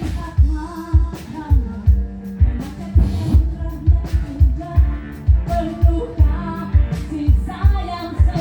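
Live band playing a pop song during a sound check, with a steady kick-drum beat about twice a second under bass and a melody line.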